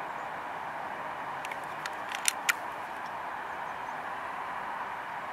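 Steady outdoor background hiss, with a brief cluster of sharp clicks about two seconds in, the last two much louder than the rest.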